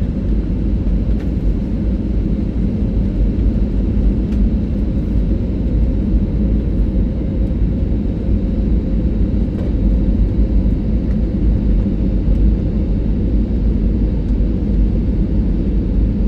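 Airliner cabin noise heard from a passenger seat: the steady, low-pitched sound of the jet engines and the air rushing past the fuselage, with no marked change.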